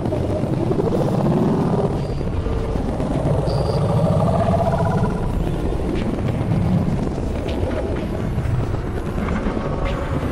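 Experimental electronic soundscape: a dense, low drone with warbling tones that glide up and down in the middle range, two short high beeps early on, and a few faint clicks in the second half.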